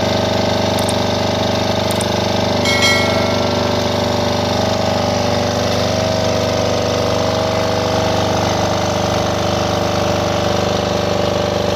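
Mindong Weifang GFD7000VA generator's engine running steadily. A brief high-pitched tone sounds about three seconds in.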